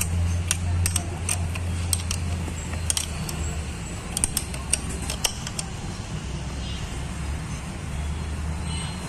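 Metal clicks and clinks of a ring spanner and an Allen key on the timing-belt tensioner nut of a VW 2.0 TDI PD engine as the nut is tightened. The clicks come irregularly, thinning out after about five seconds, over a steady low hum.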